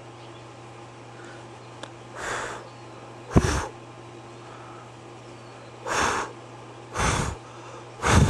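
Five short puffs of air noise on the microphone, like breaths, spread irregularly over several seconds, the second and last the loudest, over a steady low hum.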